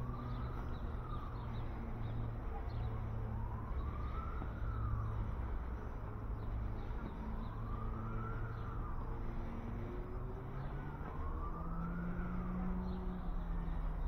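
Emergency-vehicle siren wailing, its pitch slowly rising and falling about every three and a half seconds, over a steady low hum.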